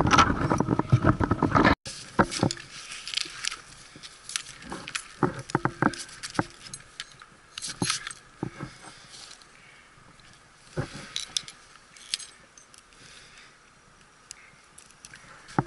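Metal climbing hardware clinking: carabiners and gear knocking together in scattered clicks and clanks, with some rustling. A louder stretch of noise in the first couple of seconds cuts off suddenly.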